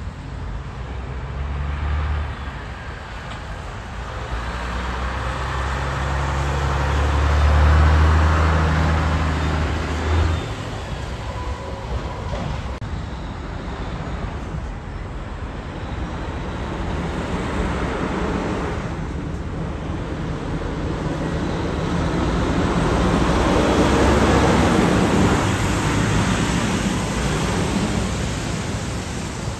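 Traffic on a wet road: cars passing with tyre hiss, and a long-hood semi truck's diesel engine. A low engine drone holds for about the first ten seconds, then the hiss of tyres on wet pavement swells loudest about three quarters of the way through as the tractor-trailer passes close.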